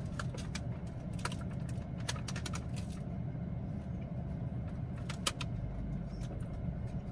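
Scattered crinkles and clicks of a paper donut bag being handled and bitten from, thickest in the first few seconds and again about five seconds in, over the steady low hum of a car cabin.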